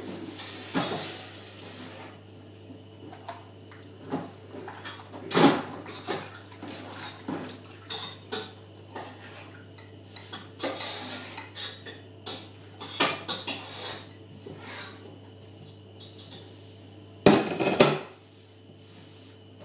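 Kitchen clatter of pots, pans and cutlery being handled: irregular clinks and knocks, with louder clatters about five seconds in and near the end, over a steady low hum.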